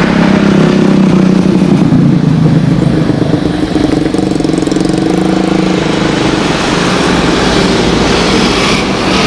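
Jet airliner engines running, a loud steady roar with a low drone whose pitch shifts slightly.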